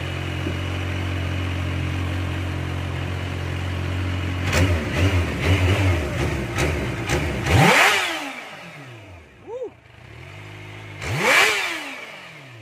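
Kawasaki Ninja sport bike's engine idling steadily while it warms its oil, then blipped a few times from about four and a half seconds in and revved hard twice, each rev rising sharply and falling back to idle.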